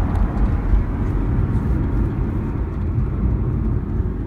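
Lexus IS 250C driving, with a steady low rumble of road and engine noise and a few faint light ticks, the kind of knock from the convertible's folding hardtop roof that is being recorded.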